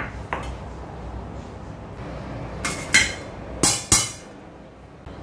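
A stainless steel mesh strainer and a stainless steel mixing bowl clanking together. Two light clicks come near the start, then three sharp metallic clinks with a short ring, about three and four seconds in.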